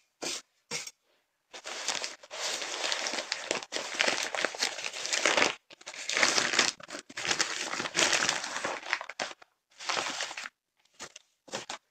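Crumpled newspaper packing being unwrapped and handled, crinkling and rustling in uneven bursts with short pauses.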